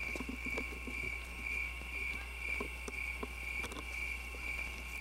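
Night-time crickets trilling steadily in a high, even pulse about twice a second, with a few faint scattered ticks and a low steady hum underneath.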